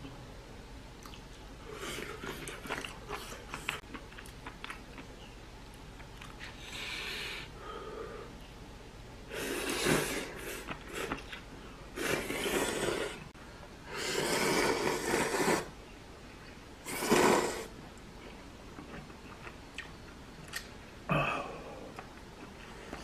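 A person eating ramen noodles: soft chewing at first, then from about ten seconds in four loud slurps of noodles, each lasting up to a second and a half. A single sharp tap near the end.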